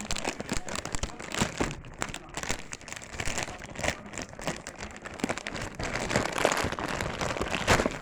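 Robot packaging being opened and handled by hand: plastic and cardboard crinkling and rustling, with many small irregular crackles and clicks.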